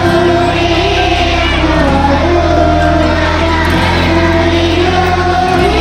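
A girl singing into a microphone over an amplified backing track, holding long notes on a melody above a steady bass line.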